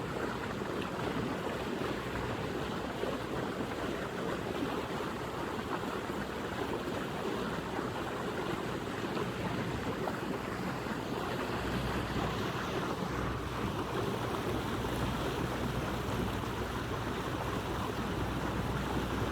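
Boat under way, with a steady wash of water along the hull and wind on the microphone over the low hum of its engine. The engine hum grows a little stronger about twelve seconds in.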